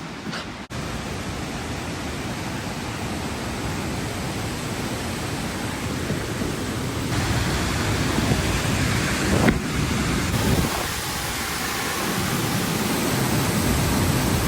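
Steady roar of a waterfall and rushing creek water, growing slowly louder, with a brief knock about nine and a half seconds in.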